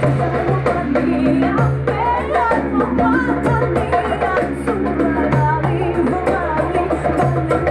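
Live band playing a song: a man and a woman singing over hand drums such as a djembe, with held low bass notes underneath.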